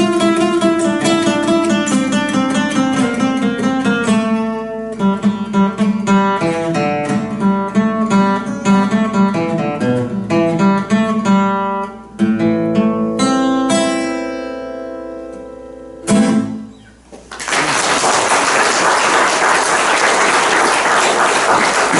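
Solo acoustic guitar playing a run of picked notes, ending on a chord that rings and fades away. A few seconds before the end the guitar is silent and applause starts.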